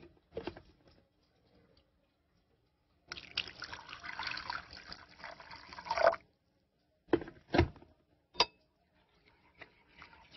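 Water poured into a ceramic bowl of tomato paste for about three seconds. A metal spoon then clinks sharply against the bowl three times and begins stirring the paste into the water.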